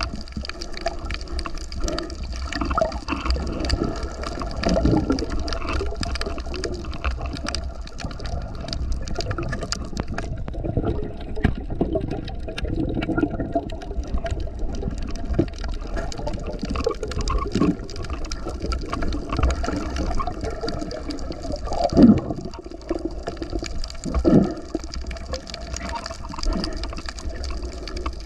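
Water sloshing and gurgling close to the microphone in irregular surges over a steady low rumble, with two louder swells about three quarters of the way through.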